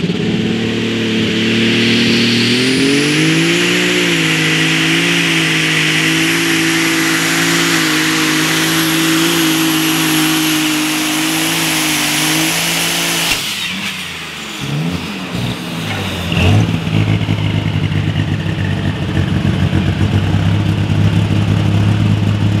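Turbocharged diesel engine of a Case IH MX170-bodied light super stock pulling tractor at full power under load, its pitch climbing over the first few seconds and then holding, with a thin high whistle above it. About thirteen seconds in the power cuts off suddenly. The engine winds down and then settles into a steady idle.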